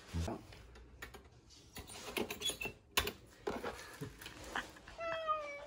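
Light clicks, scratches and rattles from a cat moving in a wire-doored plastic pet carrier, with one sharp click about three seconds in. Near the end the cat meows once, a drawn-out cry that falls slightly in pitch.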